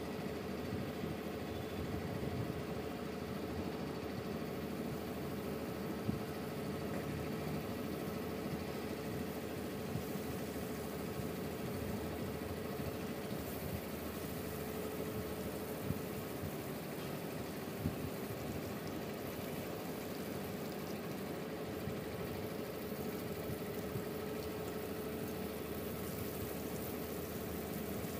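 Fish steaks shallow-frying in hot oil in an iron kadai: a steady sizzle and crackle over a low hum, with a few sharp clicks.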